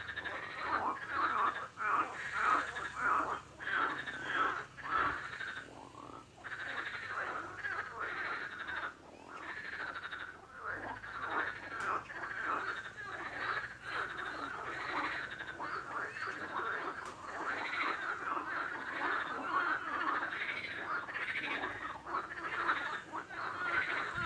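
Frogs croaking continuously, one call quickly following another.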